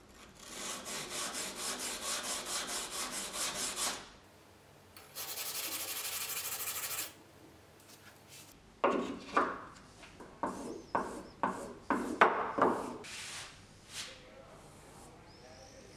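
Steel spokeshave blade rubbed back and forth on a sharpening stone to take off the burr: quick rhythmic scraping strokes, about four a second, then a steadier scrape. After a pause come about ten slower, separate, heavier strokes.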